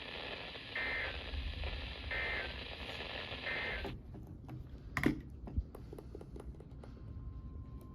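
Emergency Alert System end-of-message over weather radio: three short bursts of shrill data tone about a second and a half apart, over steady radio static. The static cuts off suddenly about halfway through, leaving a few clicks, one of them loud, and a faint steady tone that starts near the end.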